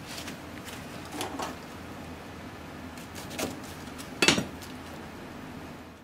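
Dishes and utensils being handled on a counter: a few light clinks and knocks, the loudest a sharp knock a little past four seconds in, over steady background noise.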